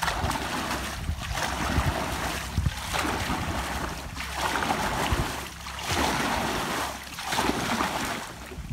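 A paddle thrashing hard through river water, splashing and churning in repeated strokes, roughly one every second and a half.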